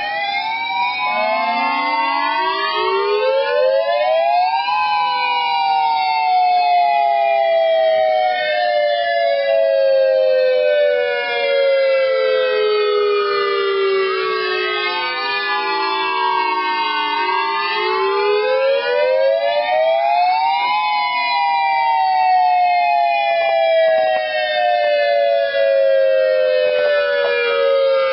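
Electronic outdoor warning sirens, among them an Ultra Voice and a Siretone, sounding the wail signal together: several tones rising and then falling slowly, out of step with one another, the lowest rising again about two-thirds of the way through.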